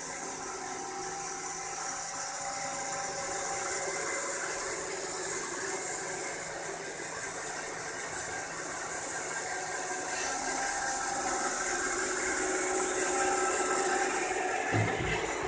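Roomba robot vacuum running: a steady motor whine with hiss, growing a little louder toward the end, and a low thump shortly before the end.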